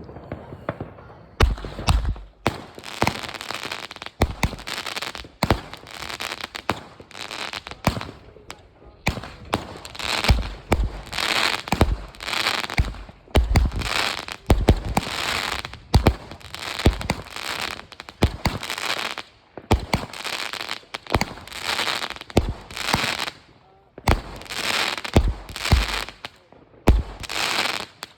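Fireworks display: a rapid run of bangs, roughly one a second, with crackle filling the gaps. It starts about a second and a half in and keeps going almost without a break.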